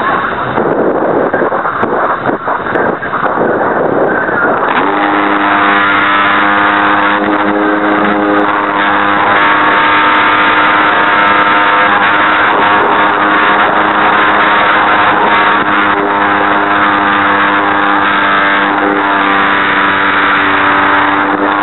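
Rough rushing and rattling noise for the first few seconds. Then, about five seconds in, the geared electric motor of an RC Super Cub LP starts a steady whine at a near-constant pitch, heard through the onboard camera. The gearbox is broken and shakes the airframe.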